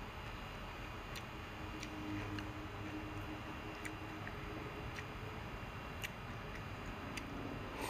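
Chopsticks clicking faintly and unevenly against each other and the bowl while picking up noodles, over a steady background hiss.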